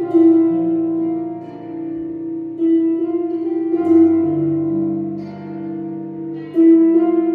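Solo harp played by hand: a slow melody of plucked notes left to ring, with lower bass notes sounding beneath, new notes struck every second or so.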